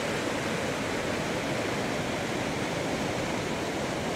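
River water rushing steadily over a weir.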